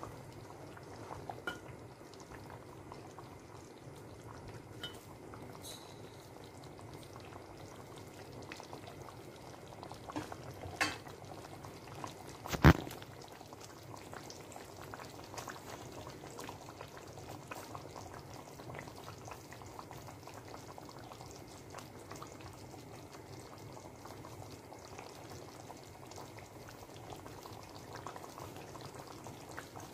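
Braised spare ribs with bamboo shoots and mushrooms simmering in their sauce in a stainless steel pan, a steady soft bubbling and crackling. One sharp clink a little before halfway through is the loudest sound.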